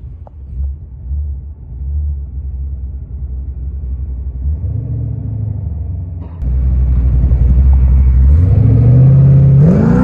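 Ford Fairmont's engine rumbling at low revs, jumping louder about six seconds in, then revving up in a rising pitch near the end.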